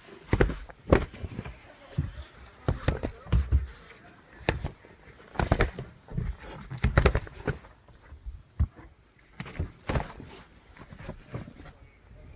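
Irregular knocks, thumps and footsteps of someone moving about and handling things aboard a boat.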